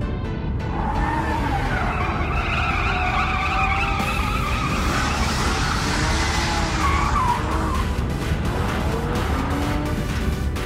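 Race-car sound effect over background music: an engine with tyres skidding and squealing in wavering high tones from about a second in until around seven seconds.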